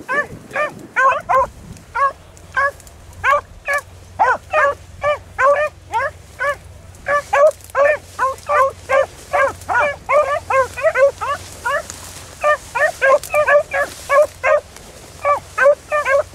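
Beagle hounds baying on a rabbit's track: a steady run of short, sharp barks, about two to three a second, with a couple of brief pauses.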